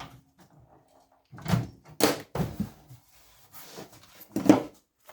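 A heavy microwave oven being handled and shifted into place on a hard surface: several knocks and clunks of its metal casing, the loudest a sharp bang about four and a half seconds in.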